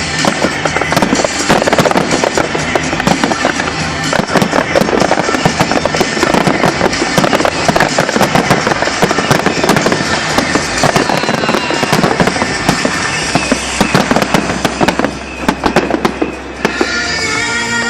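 Fireworks display, many shells crackling and banging densely at once with music underneath. The bangs thin out near the end as steady music tones come forward.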